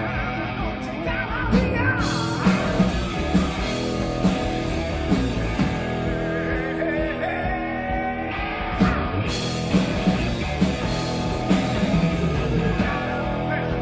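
Rock band playing live, with electric guitars, bass and drums and a lead vocal over them.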